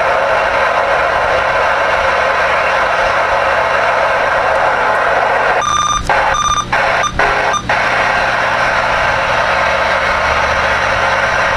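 CB radio receiver hissing with band static between transmissions. About six seconds in, the static breaks off several times over about two seconds, with short steady whistling tones as other stations key up.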